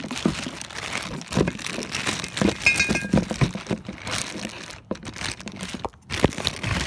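Plastic packaging crinkling and tearing as it is pulled open and handled, with scattered knocks and a brief squeak near the middle.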